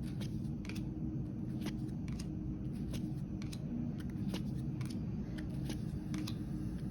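Trading cards being handled and slid one over another, a scattering of light clicks and ticks over a steady low hum.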